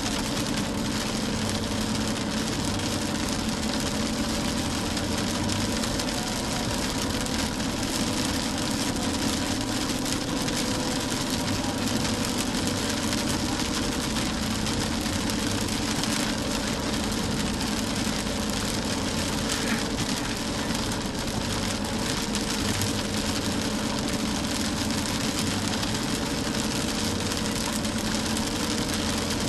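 A car driving in heavy rain: a steady engine hum under a constant hiss of rain and tyre spray on the wet road.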